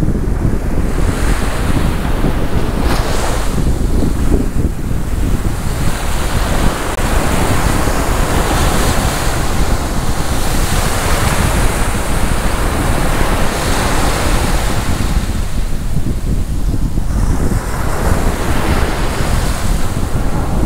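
Surf washing onto a sandy beach, the hiss of the waves swelling and fading every few seconds, with wind buffeting the microphone in a constant low rumble.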